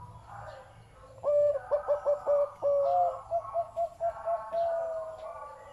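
A zebra dove cooing. From about a second in it gives a string of short, separate coos, then runs into a fast rattling series of rapid notes, and ends on a longer held coo near the end.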